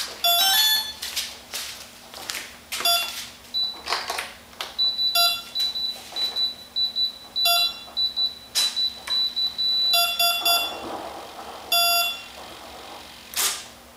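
Electronic beeps from the RC plane's brushless speed controller and motor as the electronics are powered: a quick run of stepped tones, then short beeps every two seconds or so. A thin, high pulsing beep runs through the middle, with clicks from handling the plane.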